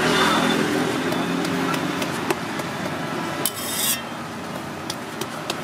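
Metal utensils clinking and tapping at a street-food griddle where an egg omelette is cooking, with a short scraping hiss about three and a half seconds in, over steady street noise.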